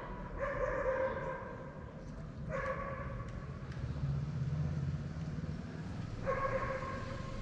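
A dog giving three long, even-pitched barks a few seconds apart, with a low motor hum underneath in the middle.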